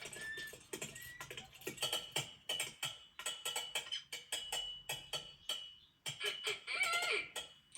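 A busy run of mechanical clicking and rattling, like a ratchet or toy mechanism, mixed with short squeaky chirps. A thin steady whistle runs through the middle, and a wobbling squeal comes near the end.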